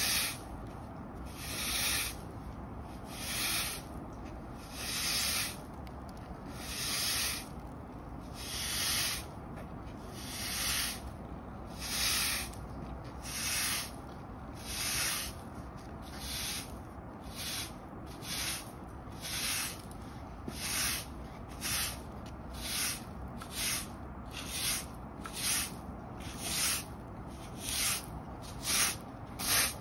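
Hard-bristle push broom sweeping dirt and debris across concrete block paving, one scratchy stroke after another. Long strokes about every second and a half in the first half give way to shorter, quicker strokes about one a second.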